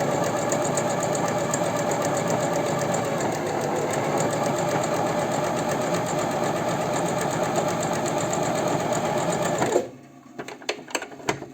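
Janome Sewist 509 sewing machine running steadily at speed, stitching a test seam with the thread tension turned up to 7. It stops abruptly about ten seconds in, and a few light clicks follow.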